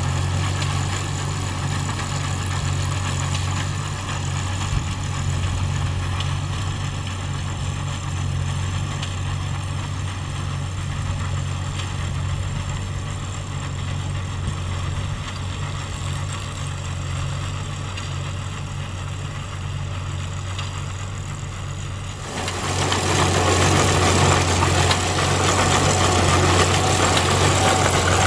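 Farmall B tractor's four-cylinder engine running steadily as it pulls an IHC ground-drive grain binder, with the binder's mechanism clattering as it cuts and binds oats. The sound gets suddenly louder and brighter about 22 seconds in.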